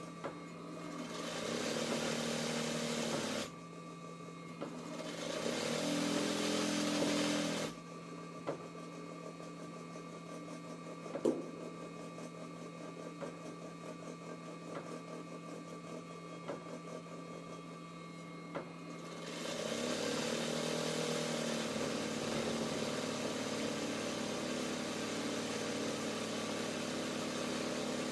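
Ranew 130 zigzag sewing machine stitching free-motion embroidery at speed, in three runs: two short ones in the first eight seconds and a longer one starting about two-thirds of the way in. Between the runs there is a quieter stretch with a steady low hum and a few light clicks.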